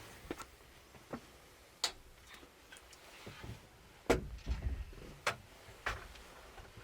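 Irregular scattered clicks and knocks, about six in all, the loudest a heavier knock with a low thud about four seconds in.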